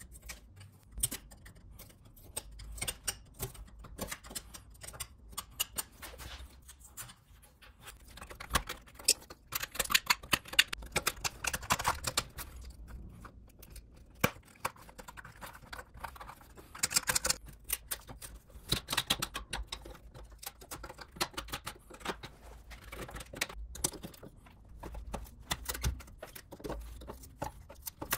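A small chisel blade scraping and picking crumbly rotten wood and debris out of a crack in an old zelkova slab: a run of irregular scratches and small clicks, busiest about ten seconds in and again around seventeen seconds.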